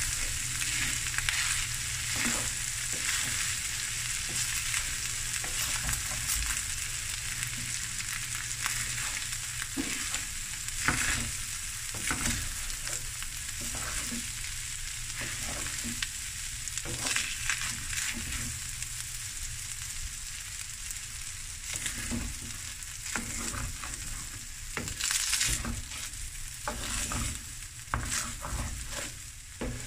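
Rice and boerewors pieces sizzling in a wok as a wooden spatula stirs and tosses them, with repeated irregular scrapes against the pan over a steady frying hiss.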